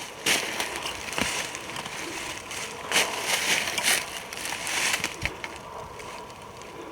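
Footsteps crunching and rustling through dry fallen autumn leaves, in an uneven run of crackly steps.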